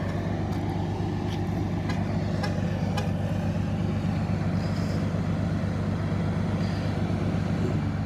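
Heavy diesel engine idling steadily, a low even hum, with a few faint clicks in the first few seconds.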